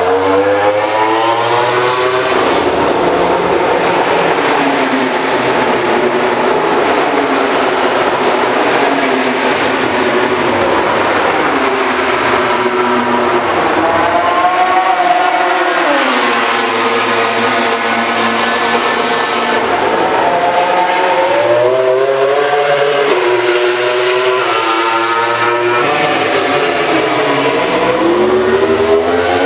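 MotoGP racing motorcycles running at speed past the track, with loud engine notes that climb in pitch through the gears and drop again as they brake and pass, several times over.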